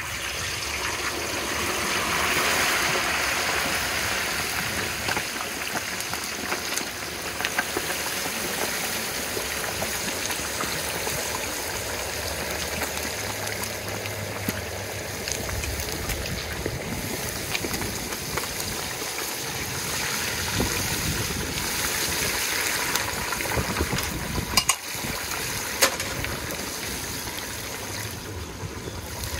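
Hot peanut oil boiling and sizzling hard around a whole turkey lowered into a propane turkey-fryer pot, a steady frothy rush that is loudest about two seconds in. Two sharp knocks come near the end.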